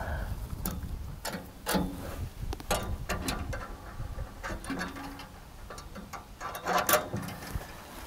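Scattered metallic clicks, clunks and rattles as the latches and locking pin on a Woodland Mills WC46 wood chipper's steel infeed chute are worked by hand to open it, with the loudest clank near the end.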